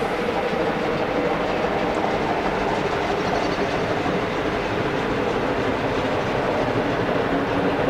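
Steam locomotive 5519 hauling a train along the far side of the valley: a steady running sound from the train heard at a distance, with no break in it.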